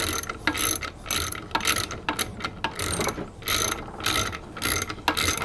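A wrench being worked back and forth on the quarter-inch hex nuts to tighten the bolts that clamp the conduit straps to the tomahawk's handle. It gives a quick, even run of metal clicks, about three a second.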